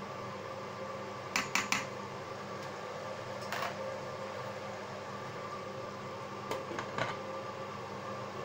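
A lidded pot of chicken and mushroom sauté simmering, with a steady mechanical hum throughout. A quick run of three sharp clicks comes about a second and a half in, a softer click about halfway, and a couple more clicks near the end.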